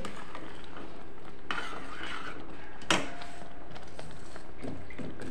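Long stainless steel ladle stirring and scraping rice and milk (kheer) in a steel pot, with one sharp clink of metal on metal about three seconds in.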